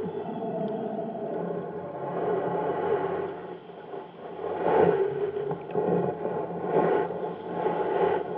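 Muffled swishing and rumbling of water heard through an underwater camera housing, swelling and easing every second or so.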